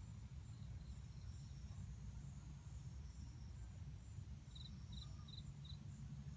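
Quiet outdoor insect ambience: faint high trilling in a repeating on-off pattern, with four short high chirps in quick succession past the middle, over a low steady rumble.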